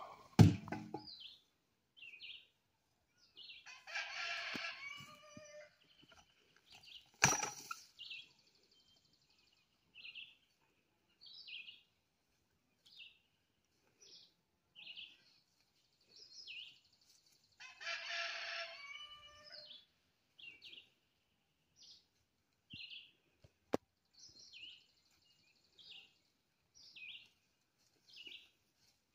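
A rooster crows twice, a few seconds in and again past the middle, while a small bird gives short high chirps about once a second. One sharp knock, the loudest sound, comes about a quarter of the way through.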